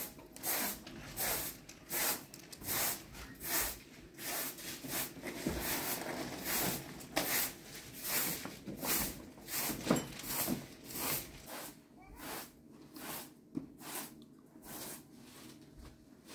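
A short straw hand broom sweeping a carpeted floor in quick strokes, each a dry swish, about two a second. The strokes thin out and grow quieter near the end.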